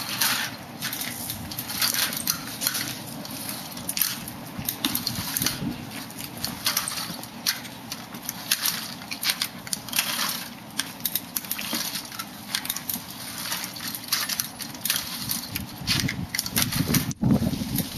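A front-wheeled walker with tennis-ball glides scuffing and rolling along a concrete walkway in short, repeated strokes, about one or two a second, with shuffling steps.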